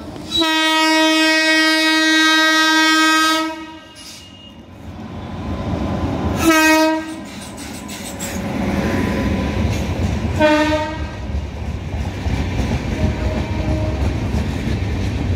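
Indian Railways electric locomotive's horn sounding one long blast of about three seconds, then two short blasts a few seconds apart, as an express train approaches and passes at speed. After the horn comes the steady rumble and wheel clatter of the passing coaches.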